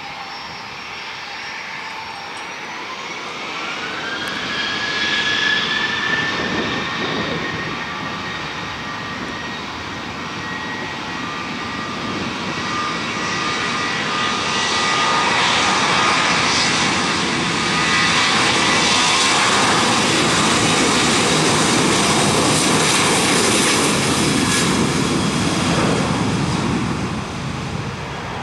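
Twin jet engines of a Southwest Airlines Boeing 737 spooling up with a rising whine about three seconds in, then running steadily at takeoff power as the jet rolls down the runway. The roar grows louder toward the middle and eases off near the end.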